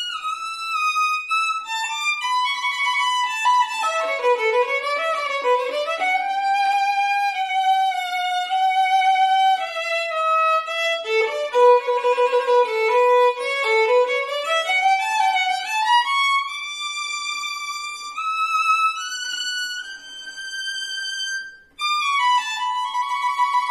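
Solo violin played with the bow, unaccompanied: quick running passages that sweep down and climb back up twice. A brief break comes near the end, followed by a held, vibrating note.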